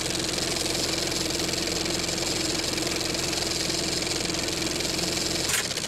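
Film projector sound effect: a steady mechanical whirr with a fast, fine clatter under it. It shifts slightly in tone near the end.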